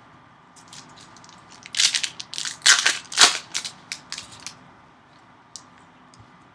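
Crinkling of a foil trading card pack wrapper being torn open and crumpled, a burst of sharp crackles lasting about three seconds in the middle.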